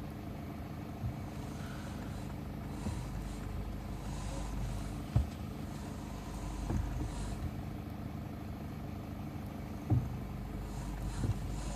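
A vehicle engine running steadily, with a few single sharp knocks at uneven intervals: about a second in, around five and seven seconds, and near ten seconds. This is the knock that the vehicle is being recorded for.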